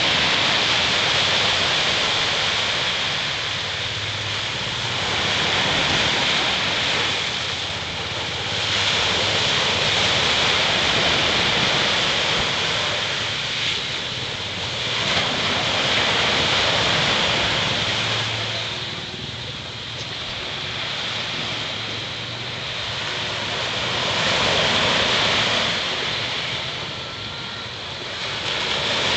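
Sea waves breaking on a beach: a continuous wash of surf that swells and eases every several seconds.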